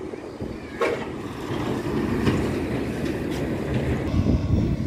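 Steady low rumble of a passing heavy vehicle, with a few sharp clanks about a second in and again twice later.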